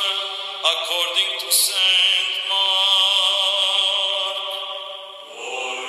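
Orthodox liturgical chant: voices singing long held notes. The pitch steps down a little after five seconds in.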